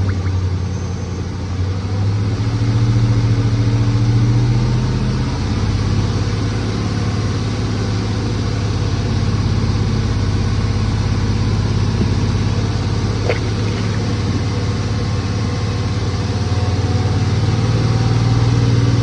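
Hemi engine held steadily at about 2,000 rpm while warming up with coolant circulating, before the thermostat opens.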